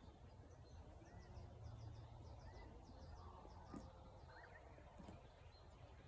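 Faint outdoor dawn ambience: birds calling, with repeated short arching chirps and a quick run of high notes in the first half, over a low steady rumble. Two brief sharp noises sound about four and five seconds in.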